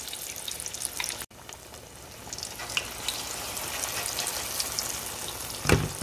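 Cassava-batter fritters deep-frying in hot oil: a steady sizzle with small crackling pops. A single thump near the end.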